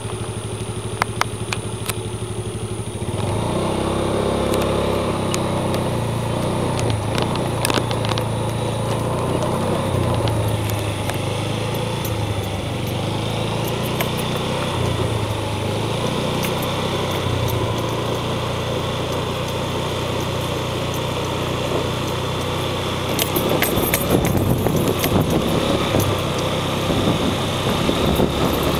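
Vehicle engine running on the move, its pitch rising and falling with speed; it gets louder about three seconds in.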